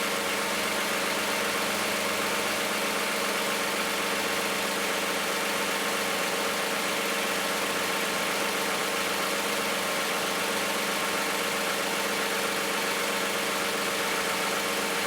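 Toyota 3.5-litre 2GR-FE V6 in a 2010 Camry with 164k miles idling steadily. It is running on thin 0W-20 oil instead of the specified 5W-30.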